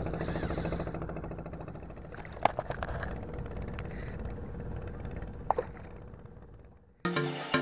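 An engine running steadily with a fast, even beat, slowly fading away, with two sharp clicks about two and a half and five and a half seconds in. Music starts just before the end.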